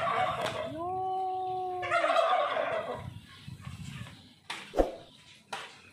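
Domestic poultry calling: one long, held call about a second in, with harsher calls around it. A few short thumps follow near the end.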